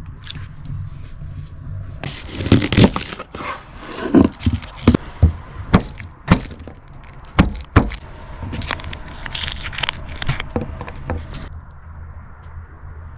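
A run of sharp, irregular cracks and knocks over a low steady rumble, starting about two seconds in and giving way to a rougher scraping noise near the end.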